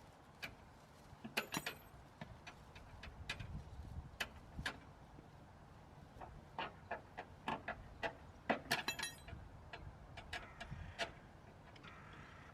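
Scattered clicks and knocks from metal tools and parts being handled during a wheel change, two of them with a brief metallic ring, about a second and a half in and again around nine seconds in.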